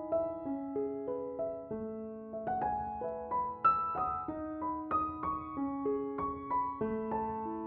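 Slow, gentle solo piano music: single notes struck one after another over held lower notes.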